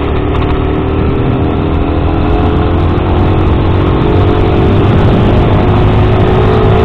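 Sinnis Max 2 motorcycle engine pulling under gentle acceleration, its pitch rising slowly and steadily with no hard revving. Heavy low wind rumble on the helmet microphone runs under it.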